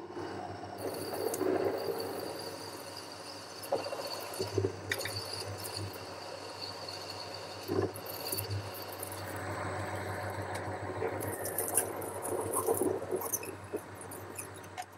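Boxford lathe running with a steady motor hum while a parting-off tool cuts into a spinning aluminium bar, with a few sharp clicks along the way.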